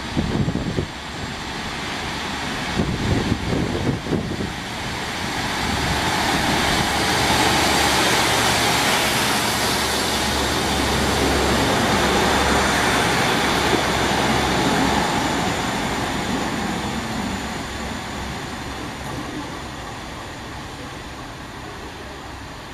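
Class 150 diesel multiple unit passing close by along the platform. Its engine and wheel noise builds over a few seconds, is loudest for several seconds as the coaches go by, then fades steadily as it pulls away.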